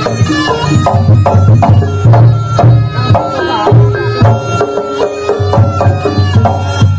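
Live Javanese jaranan ensemble music: kendang hand drums beating a steady rhythm under a pitched melody.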